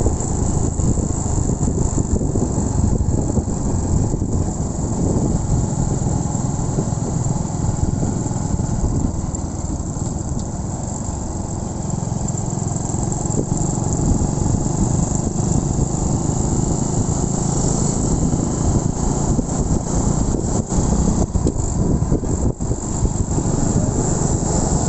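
Honda Win 100 motorcycle ridden on light throttle, the engine running steadily under a constant rush of wind and road noise. A faint, steady high chirring of night insects runs underneath.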